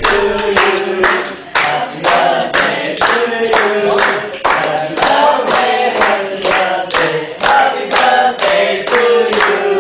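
A small group of people singing together while clapping their hands in time, about two claps a second.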